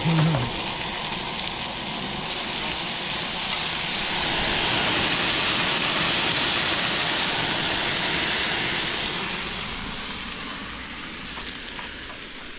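Chicken and vegetables sizzling on a Coleman propane camp grill: a steady hiss that grows louder through the middle and fades over the last few seconds.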